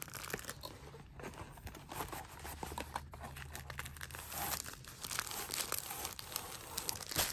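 Plastic bag and cardboard box crinkling and rustling as they are handled and pulled apart, with irregular small clicks and a sharper snap just before the end.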